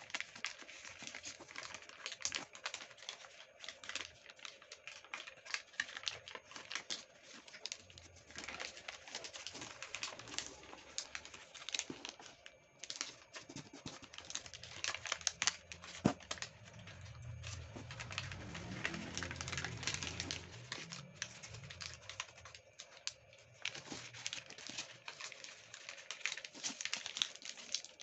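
Hands folding a sheet of origami paper on a wooden table: the paper rustles and crinkles, with quick ticks and taps as fingers press the creases flat. A low hum rises faintly in the background for a few seconds past the middle.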